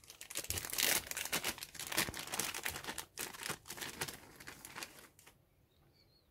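Thin clear plastic parts bag crinkling and crackling as it is handled and opened, with the small rubber model tyres inside. It stops about five seconds in.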